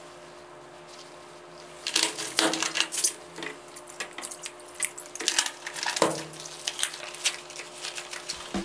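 After a couple of quiet seconds, liquid bleach poured from a plastic jug into a basin of water holding soaked clothes, splashing, with clicks of the plastic jug and cap and a knock about six seconds in as the jug is set down on the table.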